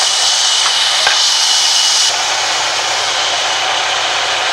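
Sawmill band saw running with a loud, steady hiss. About two seconds in the sound cuts abruptly to a duller, steady machine noise.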